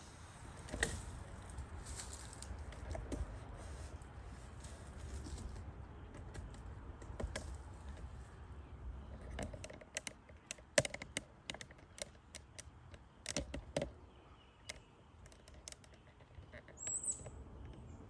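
Outdoor ambience with a low rumble, then a run of sharp, irregular clicks and taps, and one short high bird chirp near the end.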